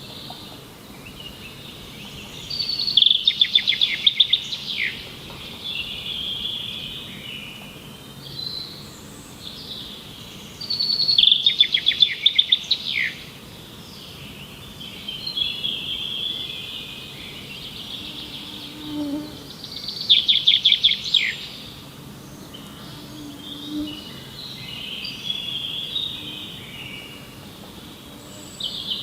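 Songbird singing: three loud song phrases about eight seconds apart, each a quick run of high notes ending in a downward slur, with softer chirps and twitters in between.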